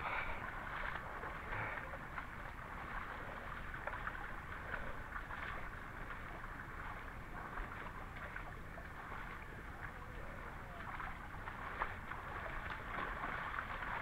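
Wading through a shallow, rocky creek: steady splashing and sloshing of feet in the water, with the creek running over the rocks.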